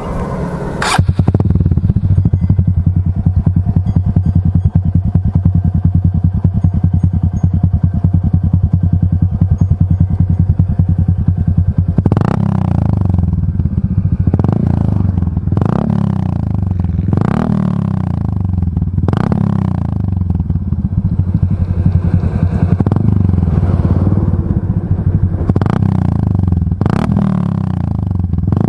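Honda XRM RS 125's single-cylinder four-stroke engine through an Exos R5 Pro aftermarket exhaust with the silencer removed, idling steadily, then blipped in a series of short revs about every one to two seconds from about twelve seconds in.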